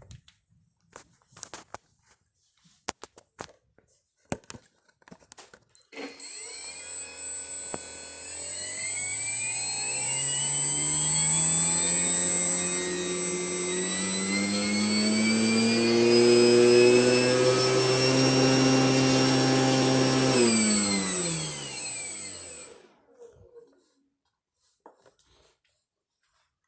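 RC Piper Cub model's motor and propeller run up: it spins up about six seconds in, the throttle is raised in steps to a steady high whine, then it spins down and stops a few seconds before the end. A few light clicks and knocks come before it.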